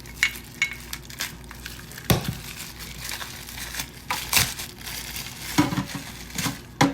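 Crinkly packaging being cut off and crumpled by hand: irregular crinkling with sharp crackles, snaps and a few knocks.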